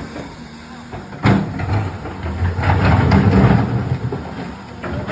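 Excavator engine running, with a heavy impact about a second in, then a few seconds of loud rumbling with several smaller knocks.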